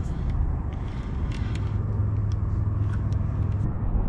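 Wind buffeting the microphone in a steady low rumble, with scattered faint clicks as a spinning reel is cranked to bring the line in.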